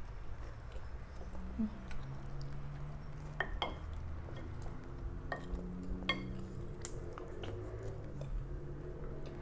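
Close-up eating sounds: chewing, with wooden utensils clicking and scraping against a plate. There are a handful of sharp clicks through the middle.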